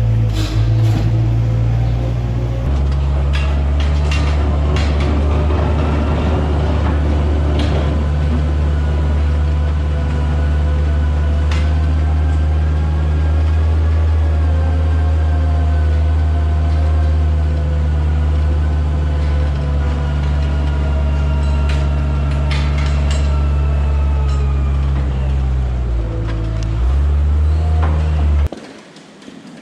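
A heavy engine running loud and steady with a low drone, shifting pitch twice, with scattered clicks, then cutting off suddenly near the end.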